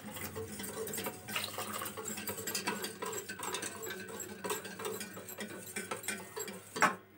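Wire whisk stirring a thin cornflour-and-water slurry in a glass bowl: quick, irregular scraping and clicking of the metal wires against the glass as the lumps are mixed out.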